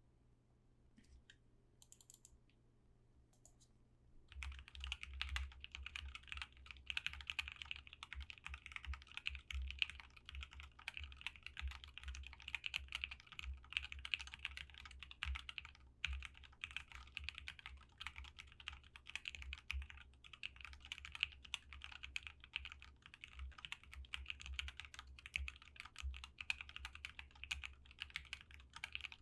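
Typing on a prototype Abasic gasket-mount mechanical keyboard with Lavender switches, an aluminium plate and a tape mod. A few scattered key presses come first, then steady, fast typing from about four seconds in.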